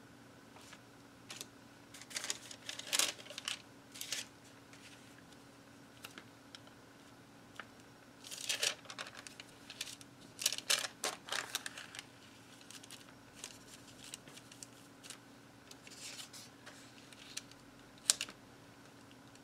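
Paper handling: cardstock and tracing paper being picked up, slid and laid on a cutting mat, in scattered bursts of rustling, crinkling and small taps, with one sharp tick near the end. A faint steady hum lies underneath.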